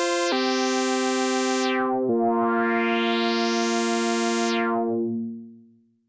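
Moog Grandmother analog synthesizer playing sustained notes, changing pitch twice. The tone darkens and brightens in slow filter sweeps, then fades out near the end.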